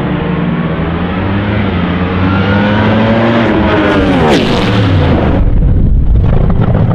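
Supercharged drag-racing car engine running loud, then passing by with a steep drop in pitch about four seconds in, followed by a low rumble as it moves away.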